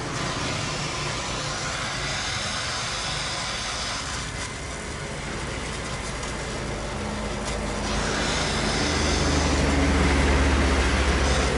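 Gas welding torch hissing steadily as a motorcycle exhaust muffler is welded. Under it a motor vehicle's engine rumbles, growing louder from about eight seconds in.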